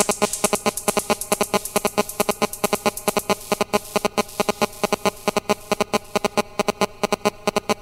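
Electronic dance music with a fast, even pulsing synthesizer pattern.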